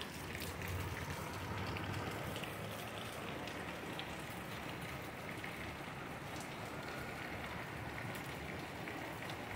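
Steady heavy rain falling and pattering on surfaces, an even hiss of countless drops.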